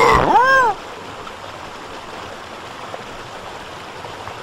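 Flowing water of a stream, a steady rushing hiss. In the first second a short, loud call rises and then falls in pitch before cutting off.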